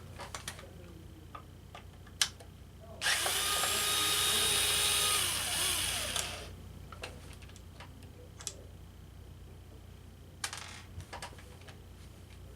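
A small power drill runs for about three seconds, a few seconds in, likely backing out the ground-wire screw on the ionizer's power board. Light clicks and taps of the wires and terminals being handled come before and after it.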